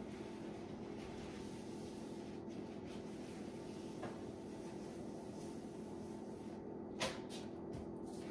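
A steady low kitchen hum with a faint knock about halfway through and a sharper click near the end, from utensils or a cupboard being handled.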